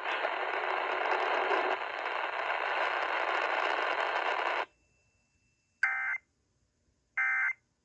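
Steady radio hiss that cuts off suddenly, then two short buzzy data bursts about a second and a half apart: the EAS SAME end-of-message (EOM) tones that close an emergency alert broadcast.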